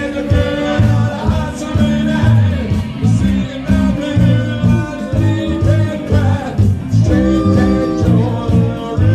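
Live band playing an instrumental passage of a rockabilly cover: lead guitar lines over a stepping bass line and drums.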